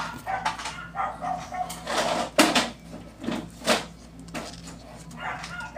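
A dog barking in a run of short, sharp barks, over a low steady hum.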